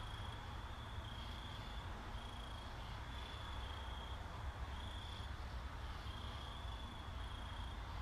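Insect chirping: short high chirps, each about a third to half a second long, repeating irregularly once or twice a second over a low steady hum.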